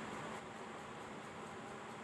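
Faint, steady hiss of background noise, with no distinct strokes or knocks.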